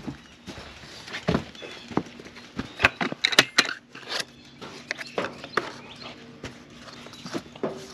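Rubber boots walking over dry straw and dirt, with irregular knocks and rattles from a carried plastic feed bucket and its wire handle.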